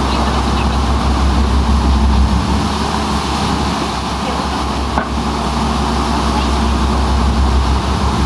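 Motor yacht under way: a steady low engine rumble under a continuous rush of wind and water.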